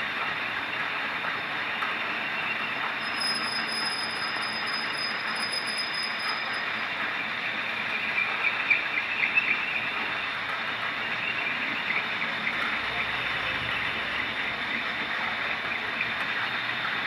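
Metal lathe running, a steady mechanical noise with a high whine, and a stretch of louder scraping and crackling of metal on metal about eight to ten seconds in.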